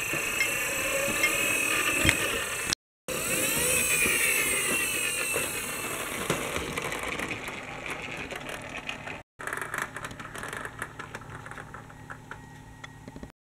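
Toy vehicle's gearing whirring and rattling as it rolls, with scattered light clicks. The sound cuts out abruptly twice, and the last part is quieter and clickier.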